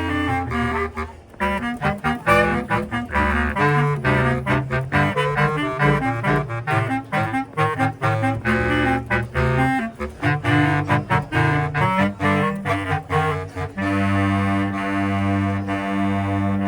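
Bass clarinet quartet playing a fast, choppy passage of short detached notes in the low register, then settling into a long held chord about fourteen seconds in.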